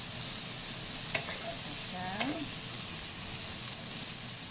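Broccoli, prawns and capsicum sizzling in an oiled non-stick wok while being stirred with a wooden spatula. The spatula knocks lightly against the pan twice, about one and two seconds in.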